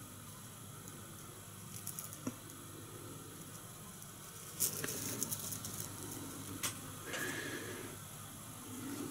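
Faint handling noise: a few light clicks and taps as small parts are picked up and set down, over a low hiss.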